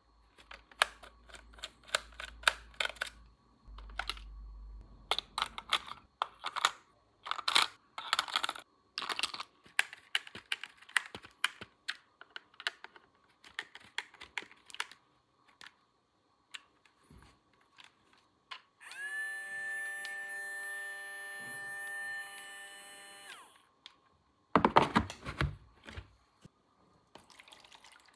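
Small plastic toy kitchen pieces being handled and set down, giving many sharp separate clicks and clacks. Later a steady pitched tone is held for about four seconds, and near the end comes a brief, louder burst of noise.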